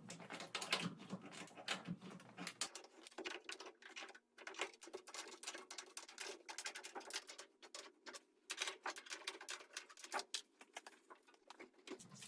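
Irregular clicking, tapping and scraping from hands and tools working on the stacked washer and dryer, adjusting them to stand level.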